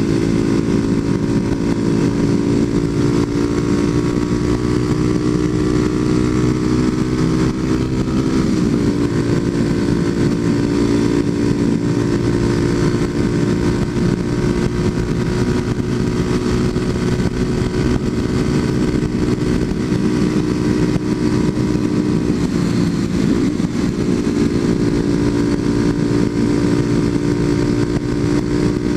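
Kawasaki KLX250SF's single-cylinder four-stroke engine running through a Muzzy aftermarket exhaust, held at a steady high cruising speed. The engine note dips briefly and recovers twice, about a third of the way in and again about four-fifths of the way through.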